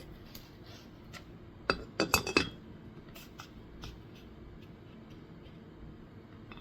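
A quick cluster of light metallic clinks about two seconds in, then a few faint ticks: a steel piston ring being handled and set into the cylinder bore for a ring-gap check.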